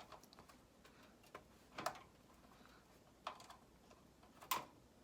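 Faint metallic clicks and ticks of a screwdriver working a screw into a power supply's mounting hole in a PC case, with three sharper clicks spaced about a second and a half apart.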